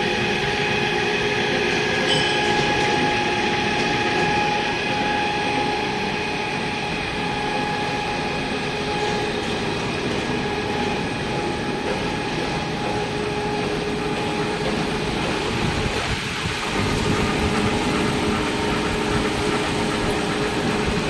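Pipe surface stripping and polishing machine running steadily: a continuous mechanical whir and rush with several steady tones held throughout, shifting briefly about three-quarters of the way through.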